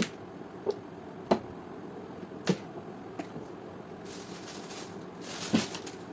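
Steam iron parts and hand tools being handled during repair: about six sharp clicks and knocks, with a short rustling hiss about four to five and a half seconds in.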